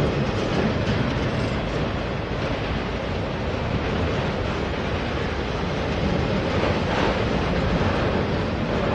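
Freight train of autorack cars passing at close range: a steady rumble and roar of steel wheels rolling on the rails.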